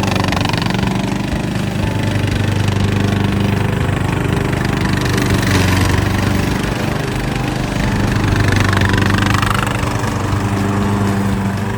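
An engine running steadily at an even speed, with a low, constant hum and louder swells of noise about halfway through and again near the end.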